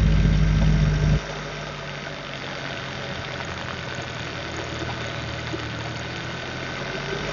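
Hyundai Tucson NX4 Hybrid's 1.6-litre turbo petrol engine running, with a loud low drone for about the first second that drops away suddenly to a quieter, steady running. The owner complains of a rattle from this engine under load that an inspection has made quieter but not cured.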